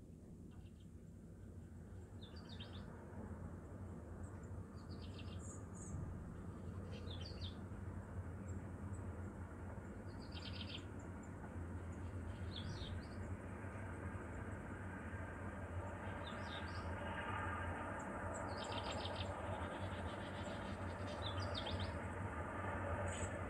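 Short bird chirps, repeating every couple of seconds, over a steady low hum and a rushing background noise that grows gradually louder.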